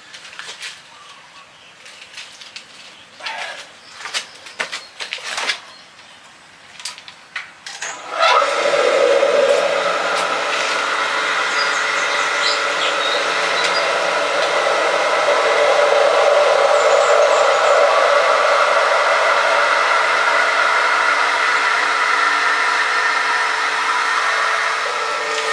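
A few light knocks and clicks, then about eight seconds in an electric well pump switches on, rising quickly in pitch as it spins up, and runs steadily and loudly.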